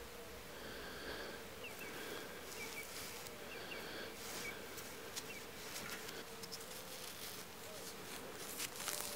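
Faint outdoor ambience: a steady hum with small birds chirping faintly now and then.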